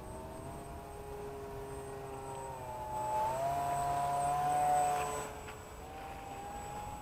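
Motor of a small radio-controlled model EF2000 jet whining in flight. The pitch climbs about three seconds in, the sound peaks a second or two later as it passes close, then falls away.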